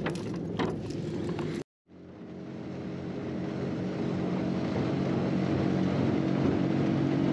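Motorboat engine running with the boat under way, a steady drone over the rush of water past the hull. The sound drops out for a moment just under two seconds in, then comes back and builds up over the next couple of seconds before holding steady.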